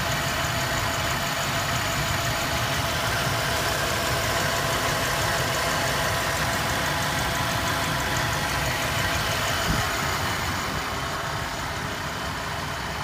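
Ford 5.0 liter EFI V8 idling steadily, with a fast, light ticking over the running engine. The owner, chasing a misfire, thinks the tick comes from under the valve covers.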